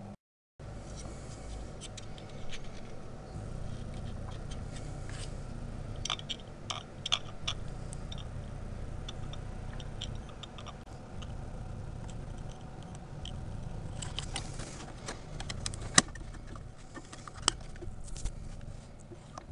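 Hands handling a plastic servo hatch cover against an RC model airplane's covered surface: scattered light clicks and taps, with a sharp click late on, over a low steady rumble.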